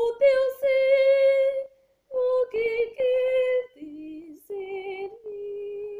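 A woman singing a Portuguese hymn unaccompanied, holding long notes in phrases of about a second each with short breaths between them, her voice settling lower in the second half.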